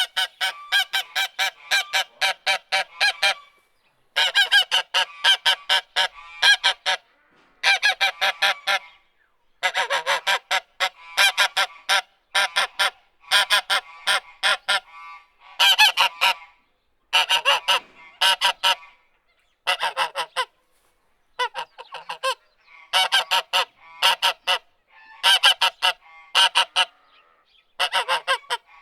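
Goose honking in quick runs of short honks, about three a second. Each run lasts one to three seconds, with brief pauses between runs.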